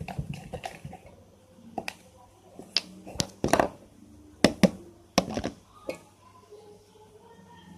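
Irregular sharp clicks and knocks of a stirring utensil hitting the side of a container as glue, detergent and water are mixed into slime, the loudest cluster a few seconds in.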